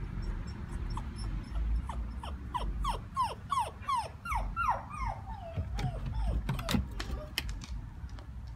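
Australian shepherd puppy whimpering, a quick run of short, high, falling whines, about two or three a second, in fear of going down the stairs. A few sharp clicks come near the end.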